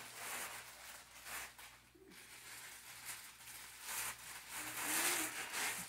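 Plastic wrapping rustling and crinkling as accordion shoulder straps are pulled out of it, in uneven surges that are loudest near the end.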